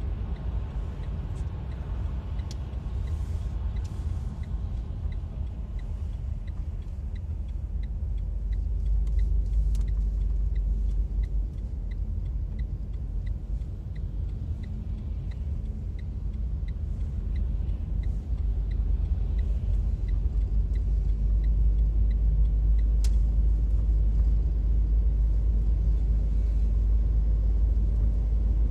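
Steady low road and engine rumble inside a moving car's cabin, with tyre noise on a wet road. For about the first half a light, even ticking runs at about two ticks a second, like a turn signal, then stops.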